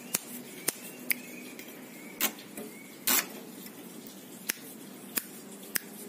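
Caged ciblek sawah prinia making sharp ticking clicks at irregular intervals, about eight in six seconds, two of them longer and louder a few seconds in, with faint short high chirps in the first half.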